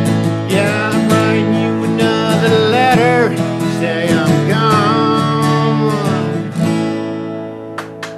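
Country music: acoustic guitar strumming under a wavering, bending lead melody. Near the end it thins out to a few single plucked notes.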